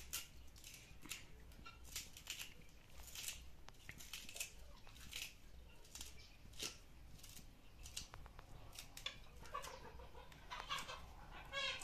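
Faint, irregular clicks and scrapes of hands and utensils preparing seasonings (coriander, garlic) for a fish stew pot. Near the end comes a short, pitched, rapidly pulsing call from a domestic animal.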